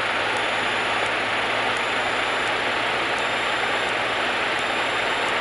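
Cessna 152 cabin noise: the engine and propeller running at low power on the ground, heard as a steady, even rush with a faint constant high tone.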